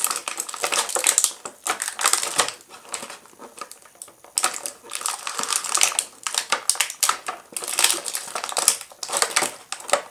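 Clear plastic action-figure packaging crinkling and crackling in rapid bursts as hands bend and pull at it to free a figure that is hard to get out, easing off briefly about three seconds in.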